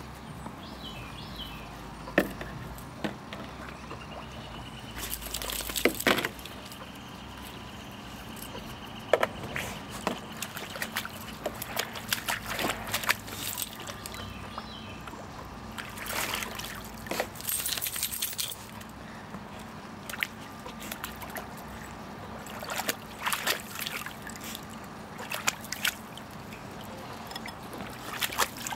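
Puppy splashing in a plastic kiddie pool, pawing at the water in irregular bursts of sloshing and dripping, with short lulls between.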